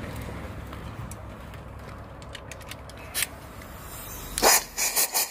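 Compressed-air blow gun fired in several short hissing blasts, starting near the end after a few light clicks, to clear cutting swarf out of a spark plug hole whose seat has just been cut.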